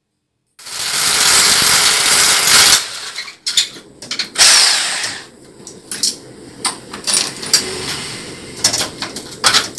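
Cordless power drill running in a loud burst of about two seconds, then a second, shorter burst, followed by scattered knocks and clicks of work on the cabinet frame.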